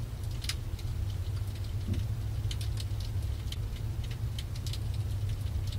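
Oyster toadfish calling underwater: a low, steady hum like a distant foghorn. Scattered crackles and pops sound over it.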